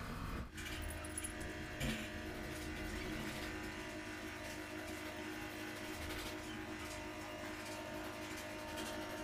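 A spanner turns the threaded steel fixing studs of a wall-hung toilet into their wall plugs, giving a few faint metallic clicks over a steady low hum.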